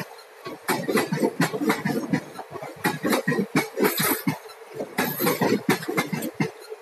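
Wheels of a passing Indian Railways passenger train's sleeper-class coaches clattering over the rails: a fast, irregular run of sharp knocks in clusters, with a short lull about half a second in.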